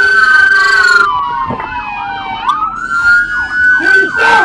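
Several police sirens sounding at once: slow rising-and-falling wails overlapped by fast yelps. One siren cuts off about a second in, and a short loud burst comes near the end.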